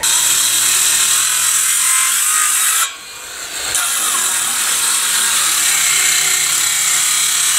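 Cordless circular saw cutting into a timber beam. It runs for about three seconds, stops briefly, then cuts again.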